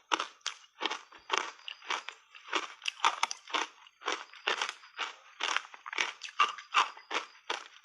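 Close-up crunching of ice cubes coated in matcha powder being bitten and chewed, a quick run of crisp crunches at about two to three a second.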